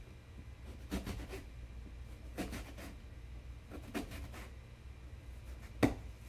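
Kitchen knife slicing through a Granny Smith apple onto a cutting board: four cutting strokes about a second and a half apart, the last, near the end, the loudest.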